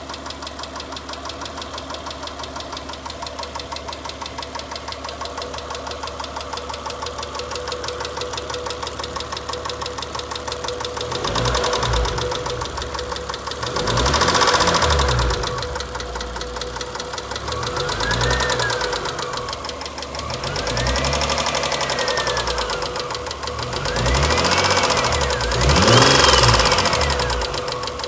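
2003 Mitsubishi Eclipse's 3.0-litre V6 idling with a steady, rapid knock, then revved up and let fall several times, a whine rising and falling in pitch with each rev. The owner wonders whether the knock is rod knock.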